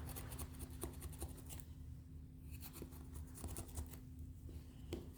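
Knife blade scraping and slicing the excess tire-plug strip off flush with the tread, faint scratchy strokes mostly in the first second and a half, then a few scattered ticks, over a low steady hum.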